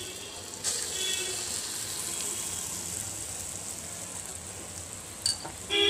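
Kolai dal (urad dal) fritter batter frying in hot oil in a kadai: a steady sizzle that jumps up suddenly less than a second in. A short sharp click comes near the end.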